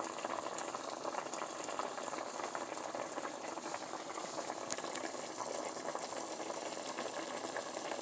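Chicken pieces boiling steadily in a stovetop pot of water and butter, a dense bubbling with many small pops; the chicken is being boiled down until tender.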